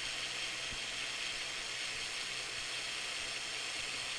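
The small electric motor of a Mould King 17007 toy crane's winch running steadily, paying out the hoist string.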